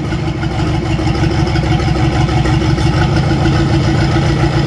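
Mitsubishi 4D31 four-cylinder diesel engine of a wooden cargo boat running steadily, heard close up as a deep, even, pulsing rumble.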